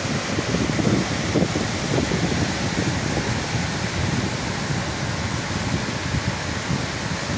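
Heavy rain falling in a steady hiss, with wind buffeting the microphone in an uneven low rumble.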